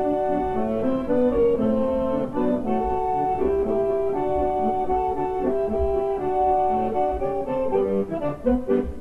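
Upbeat instrumental music with brass over a steady beat.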